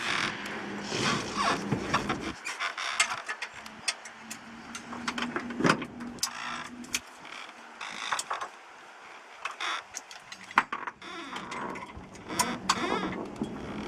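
Electric hoist for a wheelchair running, a steady motor hum for several seconds, with repeated clicks and clanks of metal fittings and straps.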